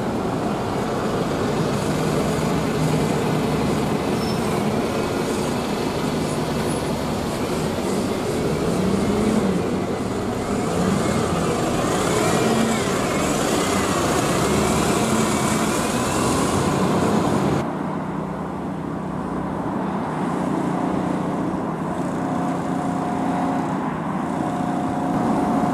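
A double-decker bus's diesel engine running close by as it moves along the street, amid town traffic. About two-thirds of the way in the sound cuts to quieter, more distant street traffic.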